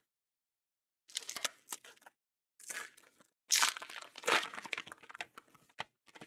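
Wrapper of a 2021 Topps Heritage baseball card pack being torn open and crinkled by hand, in several short bursts of crackling, loudest a little past the middle.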